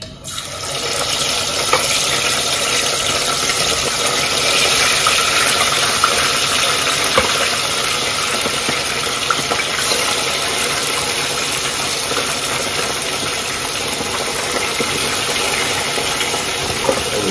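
Fish frying in hot oil: a steady loud sizzle with scattered small pops and crackles.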